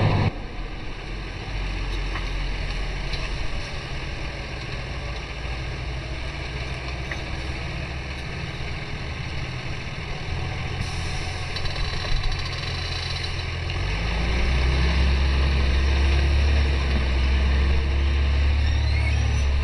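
John Deere 6140R tractor's six-cylinder diesel running steadily under load while pulling a mounted reversible plough through the soil. It grows louder with a deeper hum about two-thirds of the way through as the tractor draws near.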